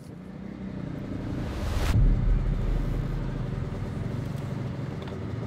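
Edited transition sound effect: a rushing swell that cuts off about two seconds in with a deep boom, followed by a steady low rumble.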